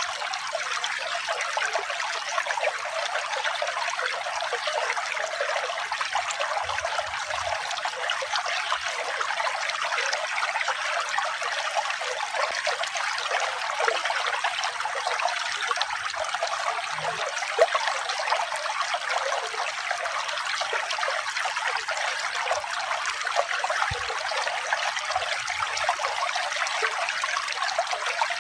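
Water trickling and flowing steadily, a continuous splashing rush with no pauses.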